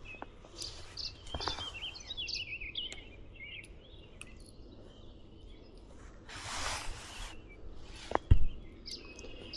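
Birds chirping over steady outdoor background noise. About six and a half seconds in there is a second-long rush of noise, and a little after eight seconds a single sharp knock.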